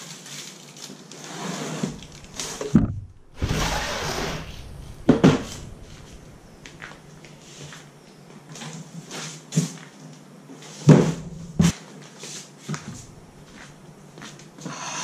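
Cardboard box scraping and rustling as a new push lawnmower is lifted out and set down on a concrete floor, with plastic wrap crinkling and several knocks and thumps of its handles and body.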